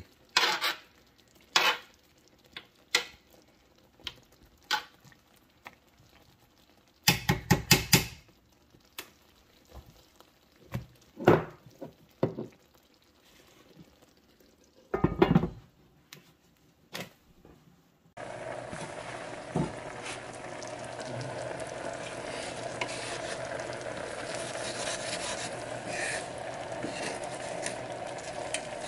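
A metal spoon clinks and scrapes in a baking dish of steaks and gravy, and a pan lid knocks in a few loud clatters. About 18 seconds in, the sound gives way to the steady sizzle and bubble of onion gravy simmering in the pan, with a wooden spatula stirring.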